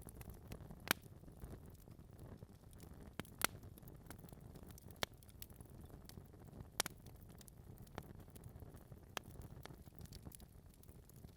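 Wood fire burning in a fireplace: irregular crackles and sharp pops of burning logs over a low steady rumble of flames. Louder pops come about a second in and again around three and a half seconds.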